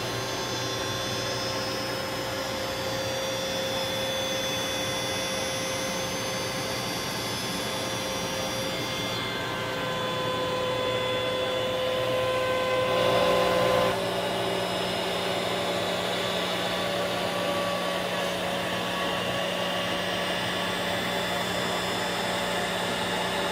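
DeWalt router on a small 3040 CNC running and cutting 3/4-inch plywood, mixed with a shop vacuum pulling the chips through the dust shoe. It makes a steady whine with several held tones over a hiss, and the tones shift slightly about 9 and 14 seconds in.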